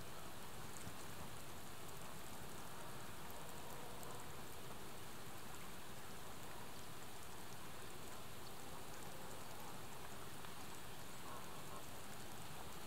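Steady, even hiss of quiet outdoor ambience, with no distinct event standing out.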